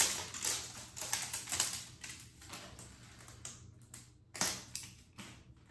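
Red plastic tamper seal being torn off a ground black pepper jar and its plastic cap worked open: an irregular run of crackles and sharp clicks, the loudest at the start, about a second and a half in and again past four seconds.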